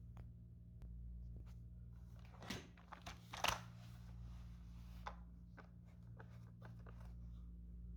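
Faint handling noises: a scatter of short clicks and rustles, loudest about two and a half to three and a half seconds in, over a steady low hum.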